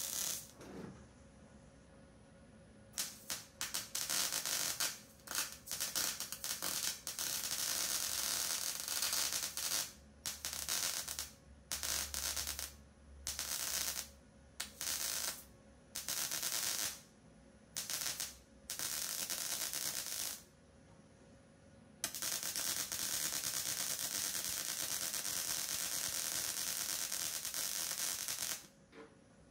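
Wire-feed welder crackling as it welds a steel shifter-mount plate into a car's sheet-metal floor pan. It welds in stop-start bursts of one to two seconds with short pauses between, then in one longer run of about six seconds near the end.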